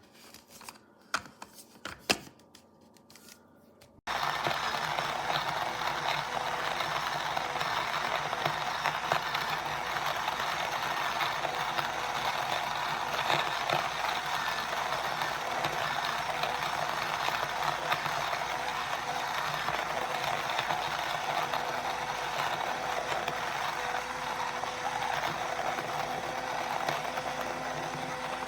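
A few light clicks of handling, then about four seconds in a Coastacloud portable electric coffee grinder with ceramic burrs switches on abruptly and runs steadily, grinding a load of coffee beans.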